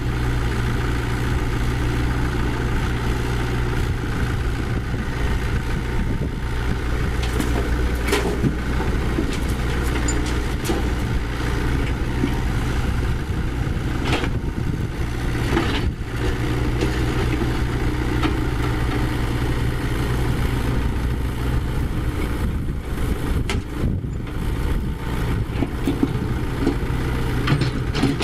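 Diesel engine of heavy construction machinery running steadily, with a sharp knock now and then.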